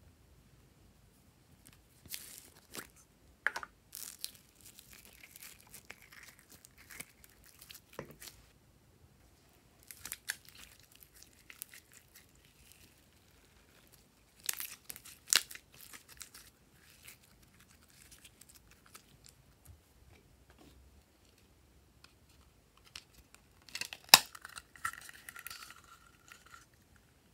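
Glossy slime being stretched and pulled by hand: sticky crackles, pops and tearing sounds that come in short clusters with quiet gaps between. The loudest crackles come near the end.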